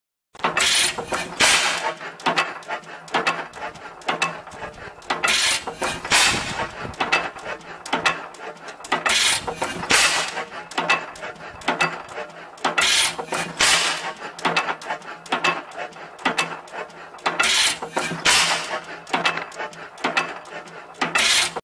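1920 Economy E 9 HP single-cylinder hit-and-miss gas engine running. A cluster of loud firing strokes comes about every four seconds, and the valve gear and governor click and clatter as it coasts between them.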